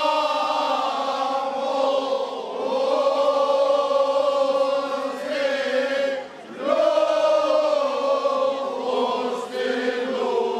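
Men's choir singing a Cretan rizitiko song unaccompanied, in long drawn-out phrases. The singing dips briefly about two and a half seconds in and breaks off for a moment about six and a half seconds in, where a new phrase begins.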